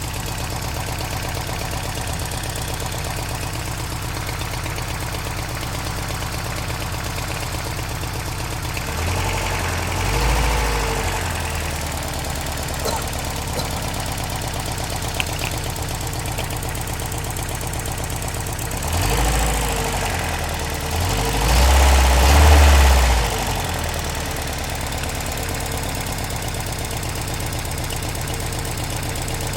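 Toyota 22RE 2.4-litre four-cylinder engine idling with a rattling, marble-like noise, revved up and back down once about a third of the way in and again near two thirds in.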